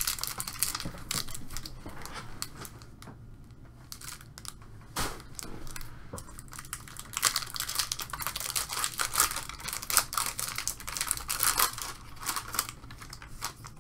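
Foil trading-card pack wrapper crinkling and tearing as it is handled and ripped open by hand, with a sharper snap about five seconds in.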